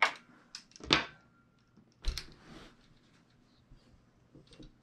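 Folding solar panel briefcase knocking and clattering as it is flipped over and stood upright. Three sharp knocks come about a second apart, the first two the loudest, followed by a few faint ticks.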